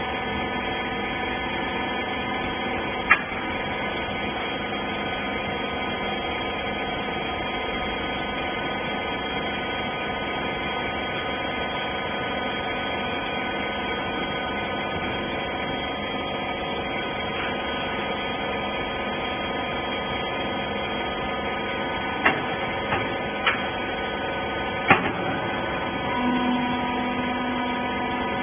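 Wiper rag baler machine running: a steady mechanical hum of several fixed tones, with a sharp click about three seconds in and a few more clicks and knocks near the end.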